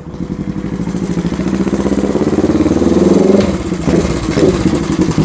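Suzuki GS400's air-cooled parallel-twin engine riding toward the listener, getting steadily louder, with a brief dip in the engine note about three and a half seconds in before it picks up again. It runs cleanly, firing properly on its newly fitted Uotani ignition.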